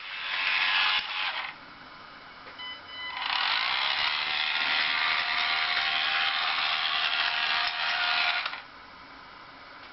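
Remote-controlled LEGO DUPLO toy train running on plastic track, its small motor and gears whirring. It cuts out about a second and a half in, starts up again about three seconds in and runs for about five seconds before cutting out again.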